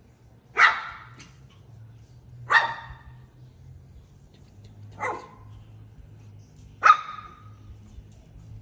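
Four short, sharp animal calls, each a fraction of a second long, about two seconds apart.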